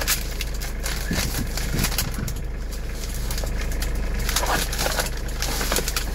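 Sheets of paper rustling and crinkling as a stack of documents is leafed through by hand, over the steady low hum of the truck's 2-litre diesel engine idling.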